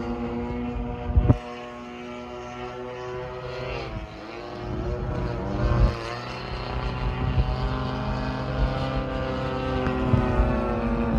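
Two large radio-controlled aerobatic planes' Desert Aircraft DA-35 gas engines droning overhead, their pitch dropping and then climbing again about halfway through as the planes change throttle and pass. Wind buffets the microphone a couple of times.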